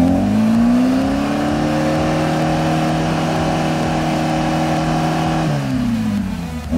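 Off-road vehicle's engine revved hard and held at high revs for about five seconds, then dropping back and revving up again at the very end.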